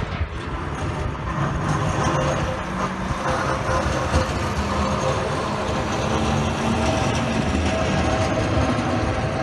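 Diesel engine of a sanitation garbage truck fitted with a snow plow, running as the truck drives through a snow-covered intersection plowing. The noise is steady, and its engine note grows a little stronger in the second half as the truck passes close by.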